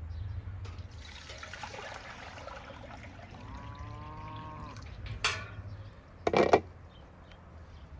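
Water poured from a metal bucket into an aluminium pot, splashing, with a pitched ring coming in as the pot fills. Two sharp knocks about a second apart follow, the second louder.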